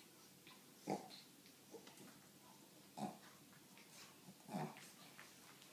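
Two Shih Tzus, an adult and a puppy, play-wrestling and giving three short grunts, spaced a second or two apart.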